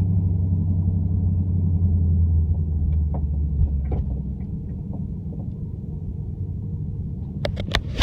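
Vehicle running under way: a steady low rumble that eases off a little about halfway through, with a few faint knocks and then several sharp clicks near the end.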